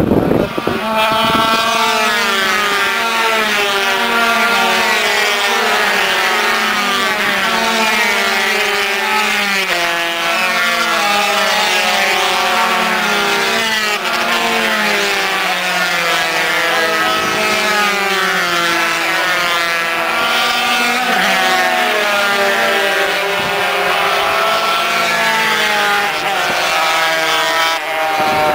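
Several small racing motorcycles at high revs, their engine notes overlapping and repeatedly rising and falling as they come down the straight and pass.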